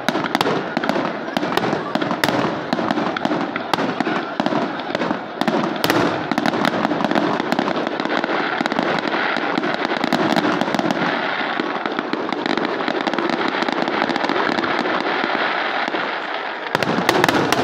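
Fireworks display: aerial shells bursting in quick succession, a continuous run of bangs and crackling, with a loud cluster of bangs near the end.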